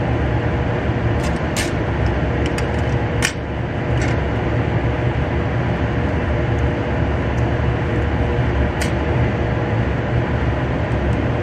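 Steady low rumble of a ventilation fan with a faint hum, and a few light clicks as the plastic cartridge parts are handled and pressed together.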